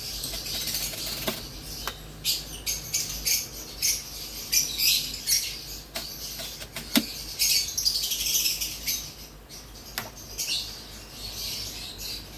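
Lovebirds chirping in a string of short, shrill bursts, with a few sharp knocks among them.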